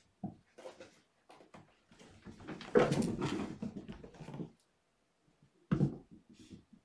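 Several kittens chasing each other over a carpeted floor and jumping on cat furniture: a run of scrabbling paw thumps and rustles, loudest for a couple of seconds in the middle, with one sharp loud thump near the end.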